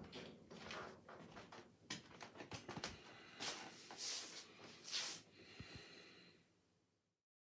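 Stifled sneezes: three short, breathy bursts roughly half a second to a second apart, over faint rustling.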